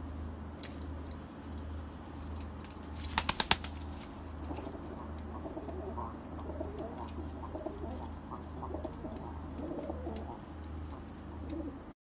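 Domestic pigeons in a loft: a quick flurry of wing claps about three seconds in, then soft cooing for the rest of the time.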